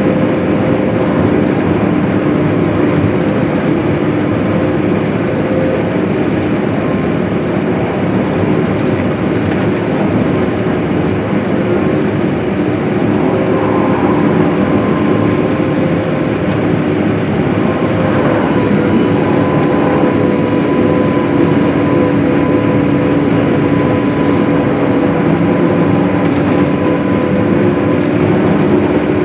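Case IH swather running steadily while cutting hay, its engine and cutting machinery making a constant loud drone with steady humming tones.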